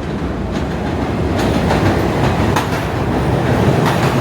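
New York City subway train pulling into the station, its wheels clacking over the rail joints as it grows louder.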